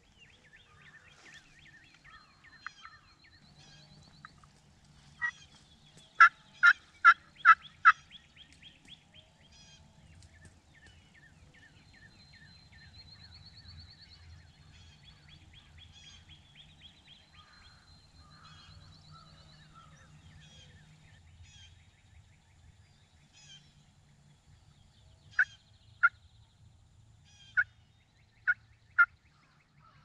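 Wild turkey yelping: a run of five loud, evenly spaced yelps about six seconds in, about two and a half a second, and a second, looser run of about five near the end. Faint songbird calls and trills sound in between.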